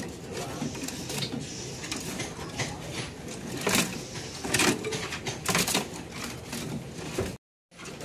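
A caged kepodang (black-naped oriole) hopping and flapping in its wooden, wire-barred cage, with irregular sharp clatters and knocks against the bars and perch, the loudest about halfway through. The sound drops out briefly near the end.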